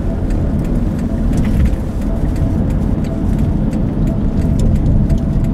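Car driving along a road, heard from inside the cabin: a steady low engine and road rumble.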